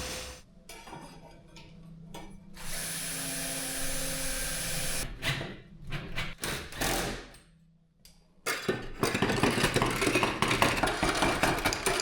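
Workshop tool noise and metal handling in several short sections, starting and stopping abruptly, ending in a few seconds of dense clicking and clattering.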